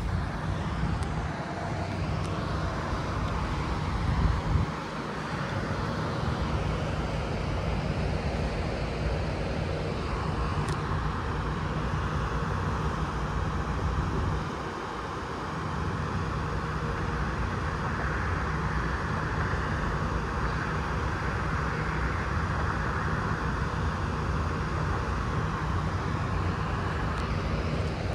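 Steady outdoor rumble and hiss, with gusts of wind buffeting the microphone at the start and again about four seconds in.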